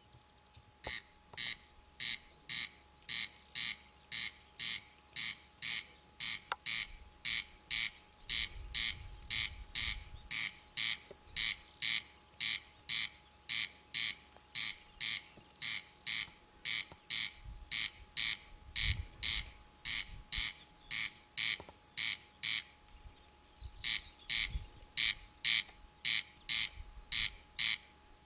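Corn crake calling: its dry, rasping crex-crex repeated about twice a second, starting about a second in, with a short break near the end before it resumes.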